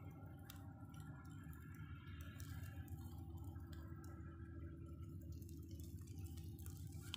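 Faint crackles and ticks from a smouldering straw fire, scattered over a steady low rumble.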